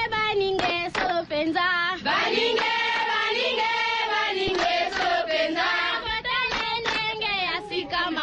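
Chanting music played on the radio as a "tribal style" send-off for a caller: high voices hold long, wavering notes over sharp percussive hits.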